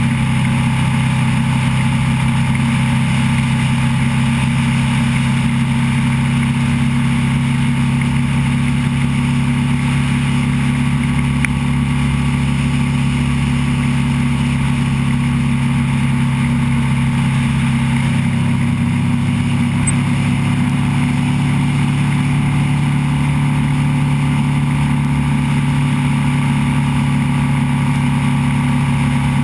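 Motorcycle engine running steadily at cruising speed, with wind rushing over the microphone. The engine note rises a little about eighteen seconds in.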